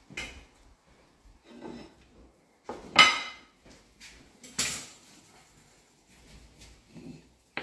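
Dishes and utensils being handled on a wooden kitchen table: a sharp, ringing clink about three seconds in, the loudest sound, and another clatter about a second and a half later, with faint handling noise between.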